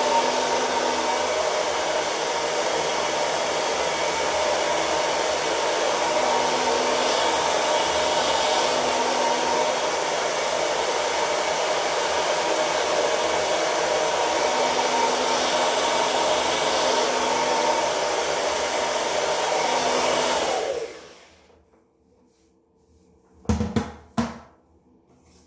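Babyliss 1800 W hair dryer running steadily with a whine over its rush of air, then switched off about 20 seconds in, its sound dying away within a second. Two or three short knocks follow near the end.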